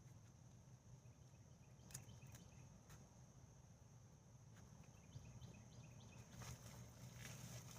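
Near silence: a faint steady high whine and low hum, with a few soft clicks and light rustling of soil and vines being handled toward the end.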